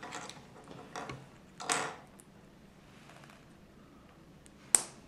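Small plastic Lego pieces handled in the fingers: a few soft clicks and a brief scrape early on, then one sharp click near the end as pieces snap together.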